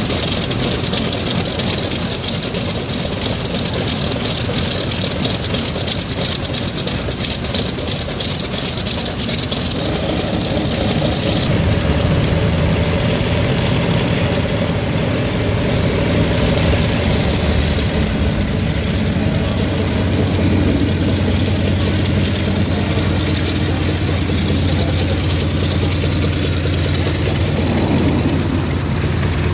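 Piston radial engines of WWII fighters, a Japanese Zero among them, running at idle on the ground with a steady low drone. The engine sound grows louder a little over a third of the way through as a fighter taxis closer.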